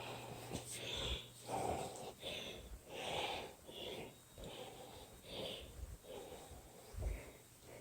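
A person walking at a steady pace, footsteps about every three-quarters of a second, with breathing close to the microphone.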